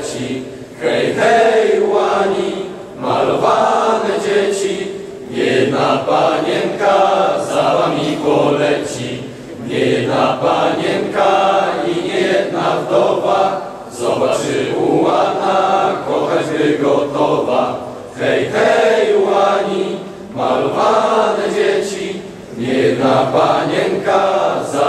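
A choir of voices singing a song, in phrases of a few seconds with short breaks between them.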